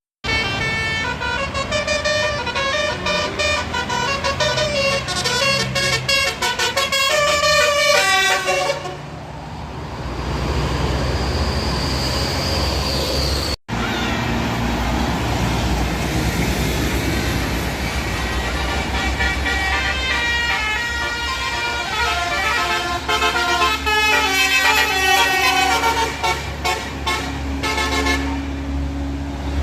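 Bus basuri telolet horn playing a tune of quick stepped notes, once for about nine seconds and again from about sixteen seconds until near the end. A bus engine runs underneath throughout.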